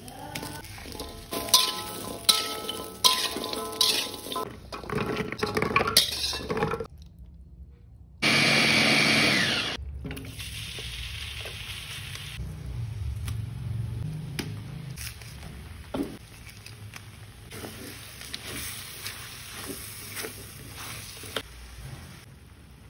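Whole shallots, garlic cloves and ginger clink into a metal wok. A blender then runs loudly for about two seconds, grinding them to a spice paste. After that the paste sizzles in hot oil in the wok, with a spatula scraping and tapping.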